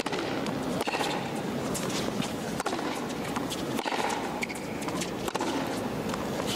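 Tennis ball struck by rackets in a baseline rally on a hard court: several sharp pops a second or two apart, with sneakers squeaking on the court between shots.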